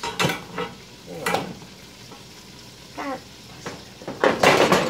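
A plastic cutting board and onions are shifted on a hot electric stovetop, making short scraping and knocking noises. Near the end a louder, longer rasping scrape comes as the board is lifted off the burner, where the towel under it has burned and stuck.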